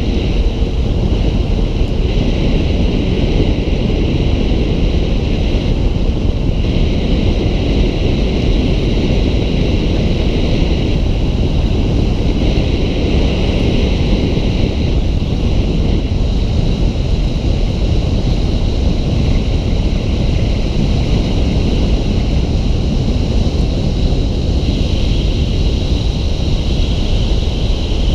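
Steady road and wind noise from a vehicle driving along, a low rumble with a high hiss over it that swells and eases every few seconds.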